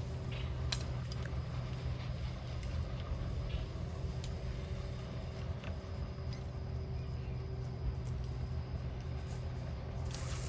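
An engine idling steadily, with a few light clicks and knocks.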